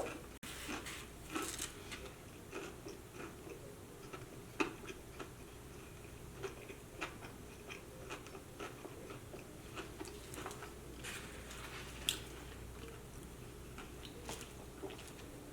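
A person chewing and biting food close up, with irregular small clicks and snaps of the mouth several times a second throughout.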